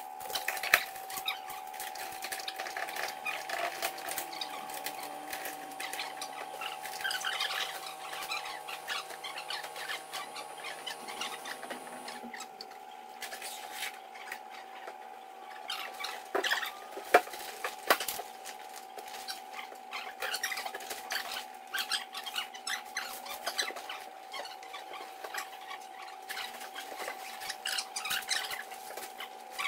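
Rustling and clicking handling noise as a canvas boat tent with folding bows and zippered windows is put up, over a steady high hum. A couple of sharper clicks come about two-thirds of the way through.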